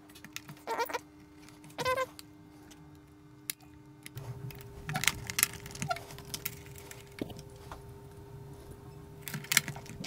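Small clicks and knocks of plastic parts and screws being handled during reassembly of a Roomba robot vacuum, with two short squeaky sounds in the first two seconds and more frequent clicking after about four seconds.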